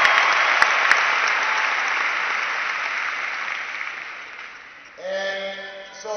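Large arena crowd applauding, the clapping loud at first and dying away over about four seconds. About five seconds in, a man's amplified voice starts again, echoing through the arena's PA.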